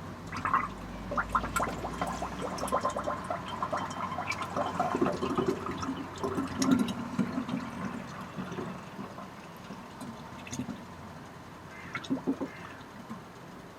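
Cherry plum cordial poured through a funnel into a bottle, gurgling as it fills, busiest in the first half and then tailing off, with a few light knocks near the end.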